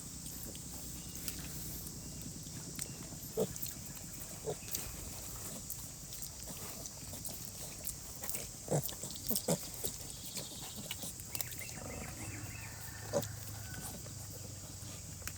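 Pigs grunting softly in short, scattered grunts over a steady hiss of falling rain.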